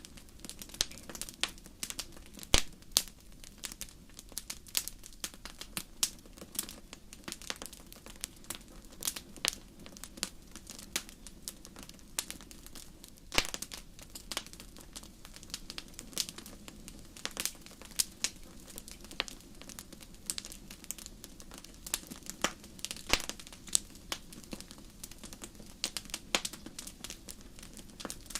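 Wood fire crackling in a fireplace: irregular sharp pops and snaps, several a second, over a steady low rumble of the flames.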